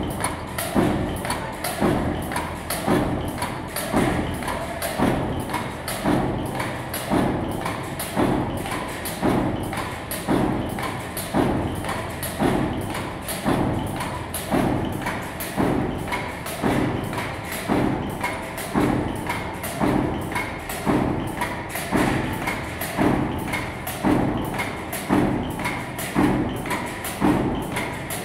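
Ameet mechanical power press on an automatic washer line, stamping flat washers out of a fed metal strip: a steady rhythm of thumps, roughly one stroke a second, with lighter metallic clicks between strokes.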